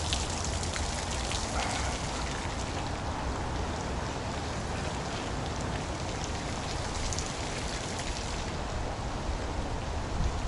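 Steady rain falling on wet paving, mixed with the splashing of a running fountain, with a few close drop ticks.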